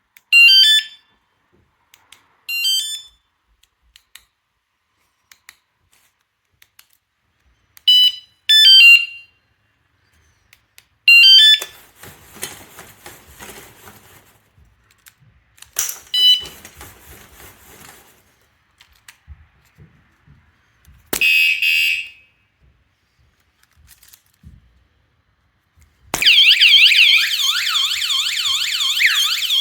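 Motion-sensor bike alarm: several short stepped electronic chirps, a single longer warning beep, then near the end the full siren starts, a continuous fast-warbling wail.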